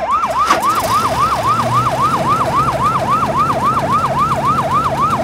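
Electronic fire-truck siren sounding a fast yelp: its pitch swoops up and down about four times a second, with a faint low hum beneath and a click about half a second in.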